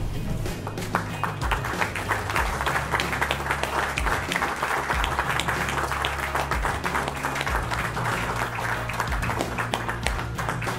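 A roomful of people applauding steadily, with background music underneath.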